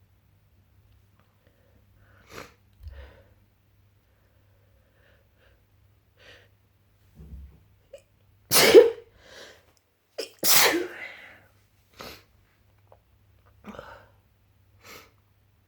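A person sneezing twice in quick succession, about two seconds apart, a little past halfway in. Short, much quieter breath sounds come before and after the sneezes.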